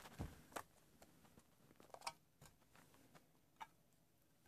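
Faint scattered clicks and plastic rustles of scissors cutting open a mail package, then a plastic-wrapped stack of trading cards being handled.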